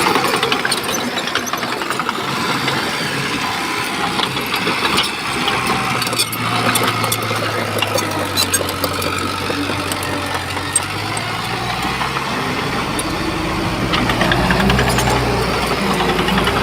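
Shantui bulldozer's diesel engine running steadily under work, with scattered short clanks, its note getting heavier and louder near the end.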